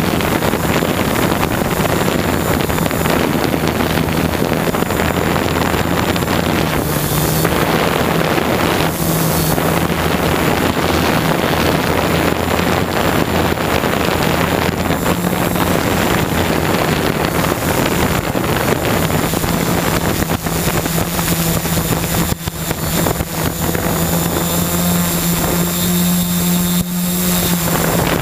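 Hexacopter's six motors and propellers running with a steady hum, recorded from the aircraft itself, with wind buffeting the microphone.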